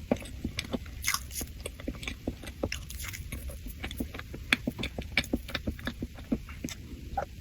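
Close-miked mouth sounds of someone eating soft cake: wet chewing, lip smacks and small clicks, several a second, over a steady low hum.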